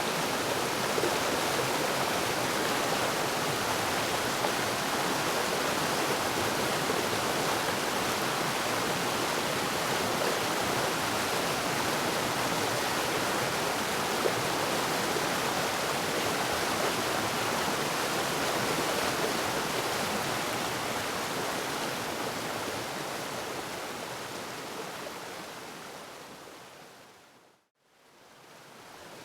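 Waterfall rushing in a steady, dense roar of falling water. Near the end it fades smoothly away almost to silence and then swells back in.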